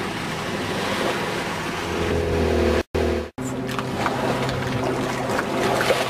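Motorboat engine running over water and wind noise, its pitch rising for a moment before the sound drops out briefly about three seconds in. After the dropout the engine hum is steadier and lower, with a few light knocks.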